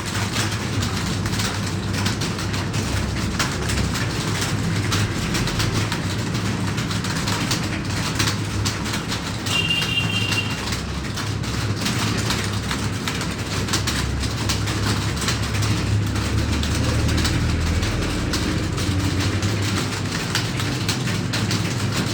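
Many computer keyboards being typed on at once: a dense, steady clatter of keystrokes over a low hum. A brief high-pitched tone sounds about ten seconds in.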